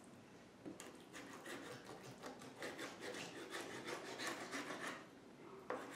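Kitchen knife sawing through raw chicken breast on a wooden cutting board. A faint run of quick back-and-forth scraping strokes of the blade on the wood starts about a second in and thins out near the end.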